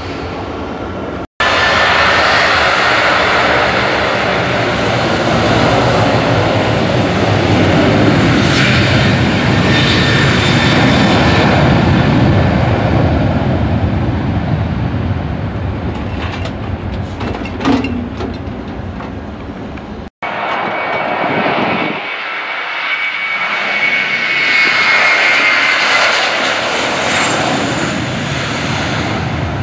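Twin-engine jet airliners' engines at takeoff power on the runway: a loud steady rush with a high whine that swells and eases as each aircraft rolls past. The sound drops out for an instant twice where clips are cut together.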